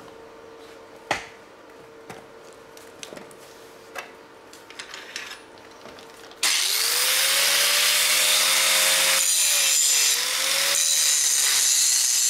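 Angle grinder starting about halfway through and grinding down built-up weld metal on a steel block: a loud harsh grinding noise over the motor's whine, which rises as it spins up and dips briefly in pitch a few seconds later. Before it, only a faint steady hum and a few small clicks.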